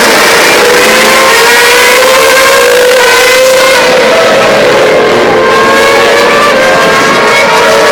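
Several racing cars' engines at high revs, passing on the circuit. Their pitches overlap and climb slowly as they accelerate, loud throughout.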